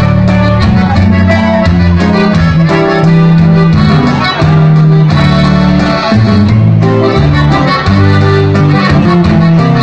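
Live norteño band playing an instrumental passage through a PA: an accordion-style melody over bass and guitar with a steady beat.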